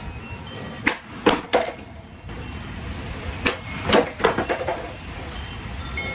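Skateboard clacks during tre flip attempts: the tail popping and the board slapping the ground, in a quick cluster of hits about a second in and another cluster around four seconds in.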